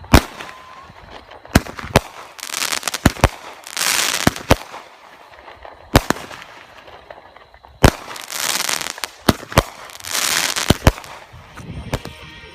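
Consumer fireworks going off: a dozen or so sharp bangs at uneven intervals, with stretches of crackling hiss between them.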